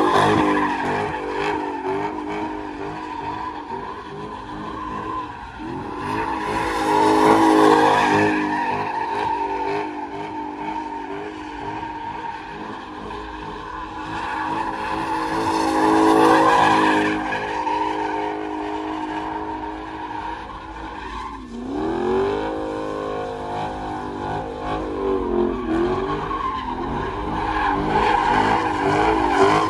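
Muscle cars doing donuts: engines revving hard, their pitch rising and falling, over continuous tyre squeal. The sound swells louder several times as a car swings past.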